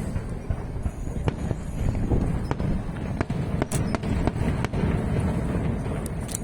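Fireworks going off in quick succession: many sharp bangs and cracks over a continuous low rumble of bursts.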